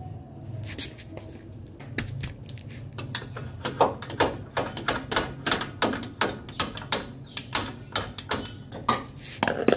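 Ratcheting wrench clicking in quick, even strokes, about three clicks a second, as it undoes the lower mounting nut of a rear shock absorber.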